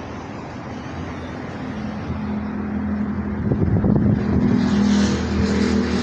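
A motor vehicle's engine running nearby, getting steadily louder, with a steady hum.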